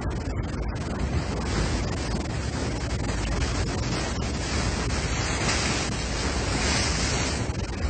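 Water rushing and splashing along the hull of a fishing boat under way, with wind buffeting the microphone and a steady low rumble underneath.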